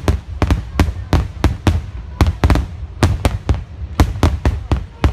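Aerial fireworks bursting in a dense barrage: sharp bangs about four times a second, their booms running together into a continuous low rumble.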